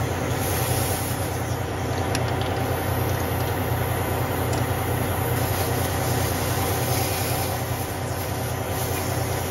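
Semi truck's diesel engine idling steadily with a low, even hum, with a couple of faint clicks as an air chuck is worked onto a tire valve stem.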